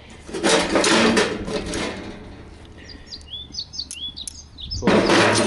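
Metal grill tongs and utensils rattling and clattering as they are rummaged in and lifted out of a metal box, in two bursts. Between them a small bird chirps several times.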